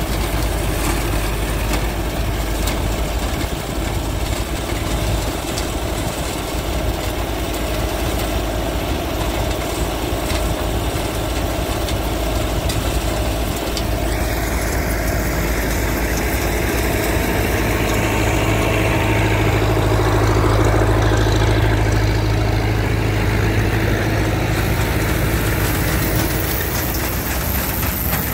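An engine running steadily, its sound shifting about halfway through, with a stronger low hum a few seconds later.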